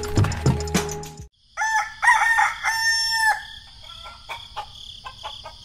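Background music for about a second, cutting off, then a rooster crowing. Short clucks follow over a steady high-pitched background tone.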